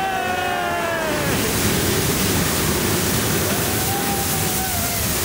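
Roller coaster ride in motion: a loud, steady rushing noise sets in about a second in, after a drawn-out voice fades out.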